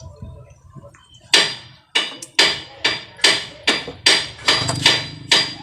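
Hammer striking metal in a steady rhythm, about two and a half blows a second, each with a short ringing tone; the blows start about a second in.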